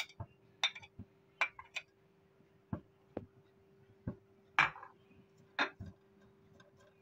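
A spatula knocking and scraping against a glass bowl and a dry non-stick pan as sliced onions are tipped in and spread out: a string of irregular clinks and a few duller knocks, with a faint steady hum underneath.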